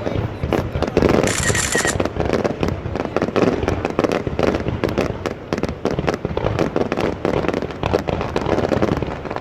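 Fireworks going off: a dense, continuous run of overlapping bangs and pops, with a short hissing crackle about a second in.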